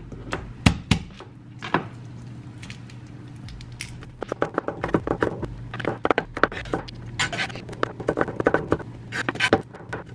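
Knife mincing garlic on a plastic cutting board: a few separate knocks at the start, then rapid, repeated chopping strokes from about four seconds in.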